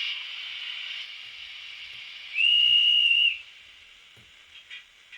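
ESU LokSound V5 sound decoder in a model BR 18 (Bavarian S 3/6) steam locomotive playing its standstill sounds through a small speaker: a steam hiss, then one steady steam whistle of about a second, then a few faint short puffs.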